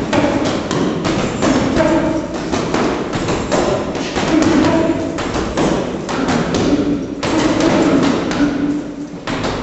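Boxing gloves hitting heavy punching bags in quick flurries of dull thuds, over background music.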